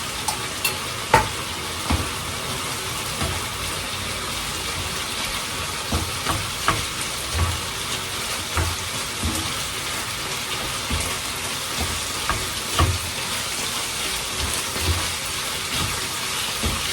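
Pasta, bacon and pesto sizzling steadily in a frying pan while being stirred, a spoon knocking against the pan now and then.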